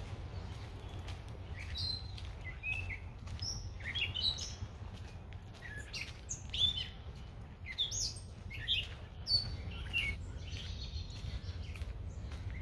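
Songbirds chirping and calling: many short whistled notes and quick chirps, some rising and some falling, scattered throughout, over a steady low rumble.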